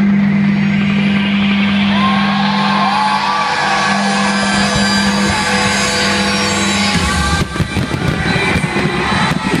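Large aerial fireworks display: a dense crackling hiss with whistling glides, and from about seven seconds a rapid run of bangs and crackles as shells burst overhead. A steady low tone holds under it until the bangs begin.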